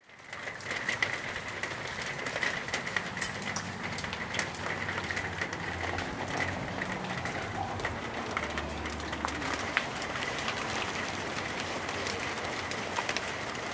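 Hail and rain coming down hard: a steady patter with many sharp clicks of hailstones striking hard surfaces.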